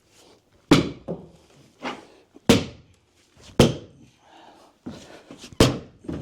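A series of sharp, heavy knocks, about one a second and uneven in spacing, each ringing briefly: blows struck in demolition work on the building's wood.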